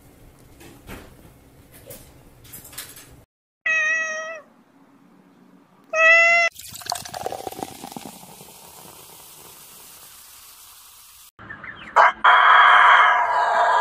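Cats meowing twice, each meow under a second long. Then a faucet runs water with a steady hiss for several seconds. Near the end a loud sustained sound starts suddenly.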